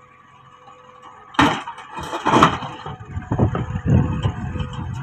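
A large boulder dropped from a JCB 3DX backhoe bucket into a steel tractor trailer: a heavy bang about a second and a half in, another about a second later, then a run of rumbling thuds and scraping as the rock settles. Diesel engines run steadily underneath.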